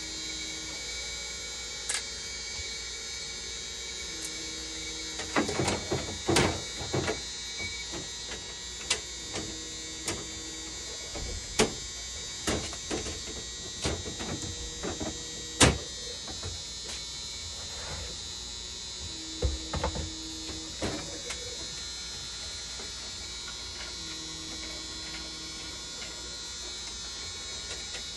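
Dialysis machine powered up and running: a steady high whine with a low tone that switches on and off every few seconds, over scattered clicks and knocks from handling the unit.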